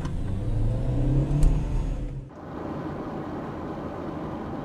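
Car engine accelerating, its pitch rising slightly. A little over two seconds in it cuts off abruptly, giving way to a steady rumble of road noise.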